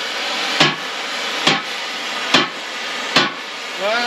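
Hammer blows on steel, evenly paced at about one strike a second, with a steady hiss underneath. This is the worn tine and bushing of a bale spike being driven out.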